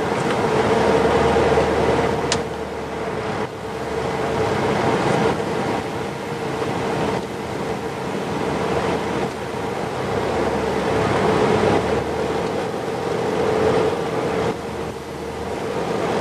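Car driving along a road, heard from inside the cabin: a steady rush of road and engine noise with a constant hum, swelling and easing a little now and then.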